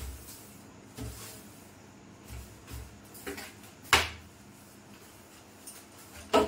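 Soft broom swept across a kitchen shelf, with a series of irregular knocks and bumps against the shelving. The loudest knock comes about four seconds in and another near the end.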